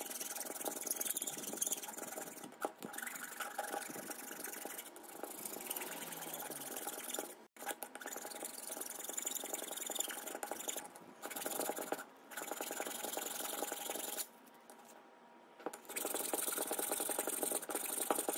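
Steel hand files rasping back and forth across a cast iron vise body, smoothing rough casting marks, in repeated strokes with short breaks. There is a longer pause about two-thirds of the way through before the filing resumes.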